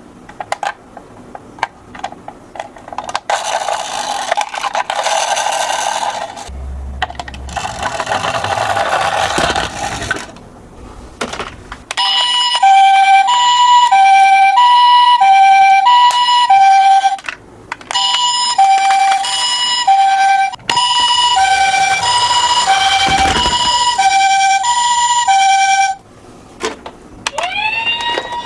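A toy ambulance's electronic siren plays a two-tone hi-lo wail, the high and low notes alternating about every 0.7 s with a few short breaks. Near the end a rising wail levels off into a steady high tone. Earlier come two stretches of noisy rattle.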